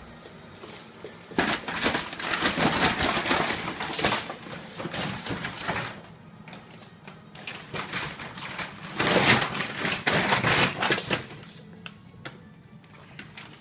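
Shopping bag rustling and crinkling as a springer spaniel puppy moves around inside it, in two spells of dense crackling: a longer one starting a second or so in and a shorter one about nine seconds in.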